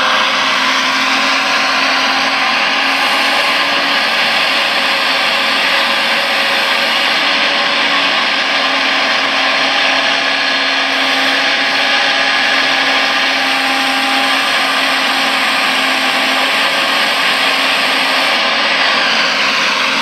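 Hydraulic pump and motors of a radio-controlled Liebherr 956 excavator model whining steadily as the machine works, with slight shifts in pitch near the start and the end.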